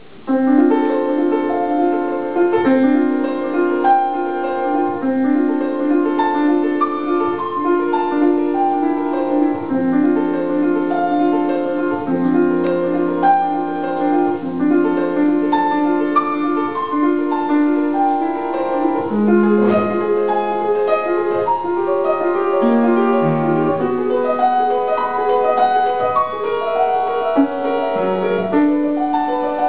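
Solo grand piano playing a classical piece, starting abruptly just after the beginning: a repeated figure of low-middle notes runs under a higher melody, with the bass line moving more freely in the second half.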